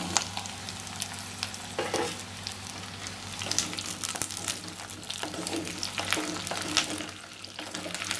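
Chunks of tinda (Indian round gourd) sizzling in hot gingerly oil in a clay pot, with scattered crackles and a wooden spatula stirring them.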